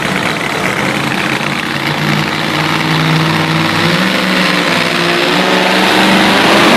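Two-wheel-drive pulling truck's engine running hard under load during a pull, growing steadily louder over several seconds.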